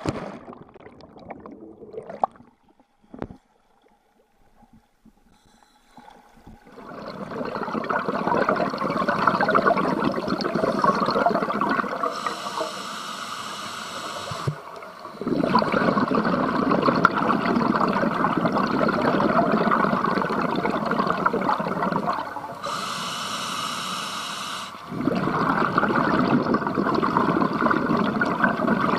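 A splash as a diver enters the sea, then a scuba diver breathing underwater through a regulator: long stretches of noisy bubbling from exhaled air, twice giving way to a higher hiss as the diver breathes in.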